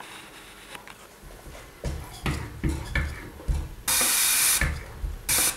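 Land Rover 2.25-litre diesel injector on a hand-lever pop tester spraying fuel with a loud hiss, once for under a second about four seconds in and again briefly near the end, after a few low thumps as the tester is pumped. The injector is opening at far too low a pressure.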